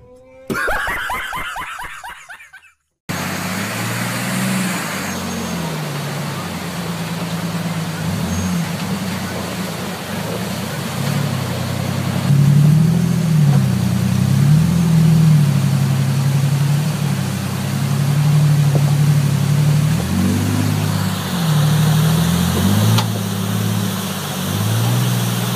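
Jeep Wrangler's engine revving up and down as it drives through a fast-flowing flooded creek, over a steady rush of water. The engine and water sound cut in suddenly about three seconds in.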